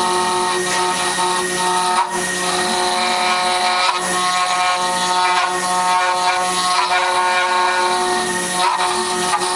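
CNC router spindle running steadily with a high, multi-toned whine while its cutter carves stepped layers into the workpiece, over a constant cutting hiss. The sound breaks off briefly about two seconds in and again near the end.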